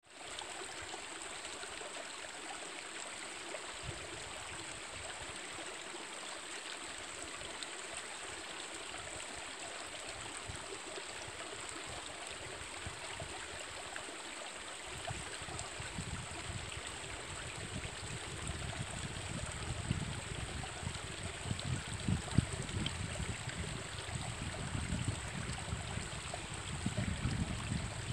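Steady rushing of the middle fork of the Coquille River flowing over its bed. From about halfway through, irregular low rumbling bumps come and go beneath it.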